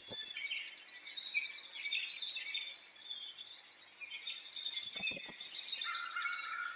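Many small birds chirping and trilling at once, a dense overlapping chorus of short high calls.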